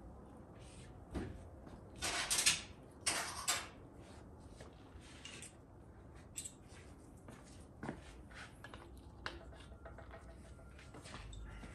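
Quiet handling noises as transmission parts are picked up and fitted: a few short scrapes about one to three and a half seconds in, then scattered light clicks.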